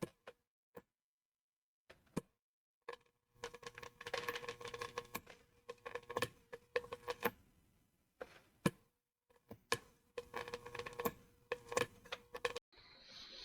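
Scattered clicks, taps and light rattling with a faint hum underneath, coming in irregular patches that cut in and out abruptly between stretches of dead silence.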